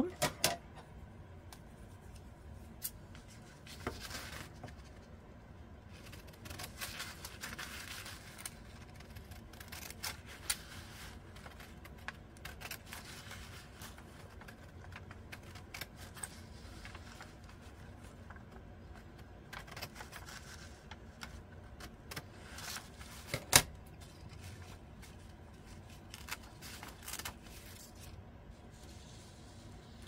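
Scissors cutting through crisp, very old newspaper: scattered snips and paper rustling, with one sharp tap a little over two thirds of the way through.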